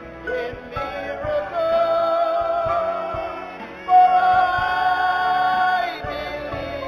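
Worship song with singing: a voice holds two long notes with vibrato over the accompaniment, the second starting louder about four seconds in.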